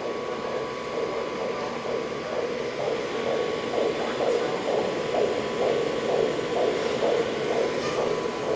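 Operating-room patient monitor giving soft pulse tones in time with an anaesthetized cat's heartbeat, about two a second (the display reads a pulse rate of 128), over a steady hum.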